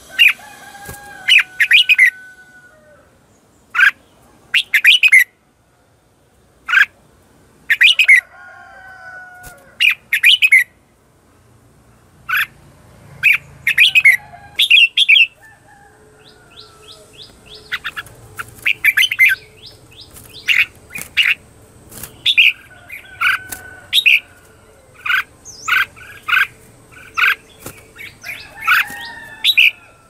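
Red-whiskered bulbul giving short, sharp chattering calls again and again, the 'ché chéc' decoy calls used to lure wild bulbuls, with a few short whistled notes that slide down in pitch. The calls come in irregular runs and grow more frequent in the second half.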